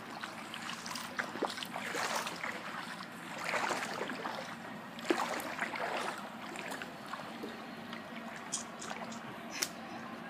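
Shallow seawater lapping and sloshing around people wading beside a flyboard, with a few small splashes, over a faint steady low hum.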